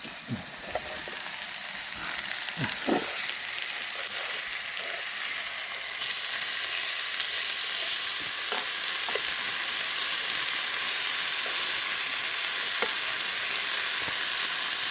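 Pork front-leg meat sizzling as it grills over wood charcoal: a steady sizzle that grows a little stronger about six seconds in, with a few faint clicks.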